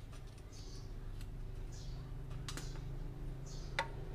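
A few sharp, isolated clicks of hand tools against metal while spark plugs are fitted into the engine head, over a steady low hum.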